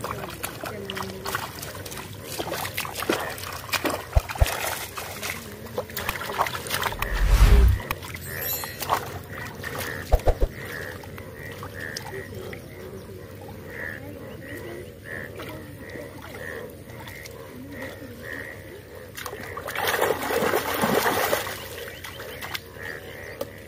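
Hands splashing and sloshing in the shallow water of a flooded field while groping for fish, with a heavier burst of splashing near the end and a few low thumps, the loudest about seven seconds in. Behind it, frogs call in a steady rhythm, about twice a second.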